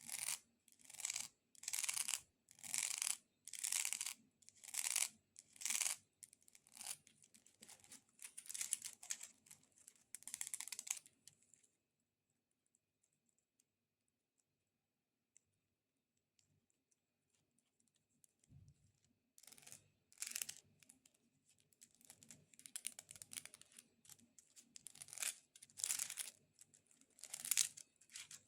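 Long fingernails scratching over a multicoloured corn cob in slow, even strokes about once a second, breaking off about 12 seconds in. After a pause of several seconds the scratching starts again, faster and mixed with taps.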